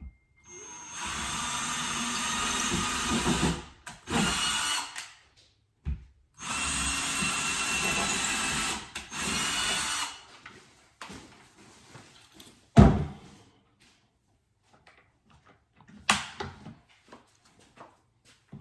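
Power drill running into a wall while a TV mount is installed: one run of about two and a half seconds, a short burst, then a longer run of about four seconds, followed by a single sharp knock.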